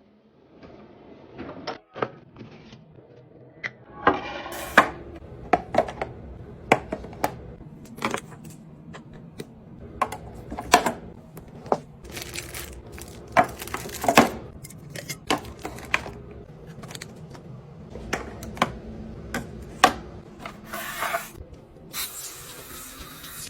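Fridge restocking: containers and groceries set down, clinking and knocking against shelves and each other in a string of sharp clicks, with a few short stretches of rustling or sliding.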